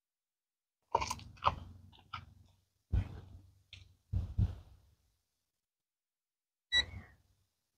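A scatter of short sharp knocks and scrapes of handling in the first half. Near the end comes one short high electronic beep from the handheld infrared thermometer as it takes a skin-temperature reading.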